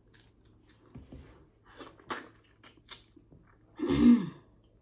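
Close-up eating sounds from a person chewing snow crab: a run of wet clicks and smacks. About four seconds in comes a short, loud vocal sound, falling in pitch, like a hum or a throat sound.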